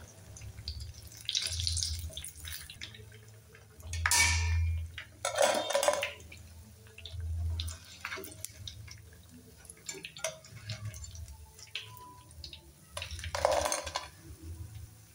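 Hot oil sizzling as fried semolina-and-potato squares are lifted out of a deep-frying pan with a wire spider skimmer, with small clinks and scrapes of the metal skimmer and a few louder splashy bursts as pieces come out of the oil.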